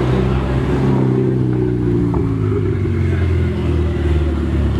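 Ferrari 488's twin-turbocharged V8 running at low revs as the car pulls slowly away, a steady low engine note that drops slightly in pitch about halfway through.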